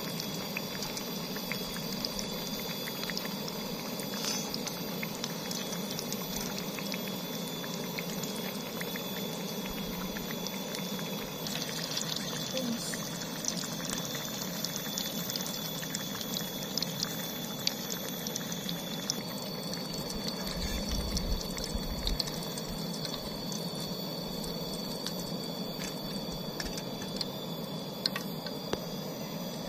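Hot oil sizzling and bubbling steadily as battered tofu croquettes deep-fry in a small aluminium camping pot. Now and then metal tongs click against the pot.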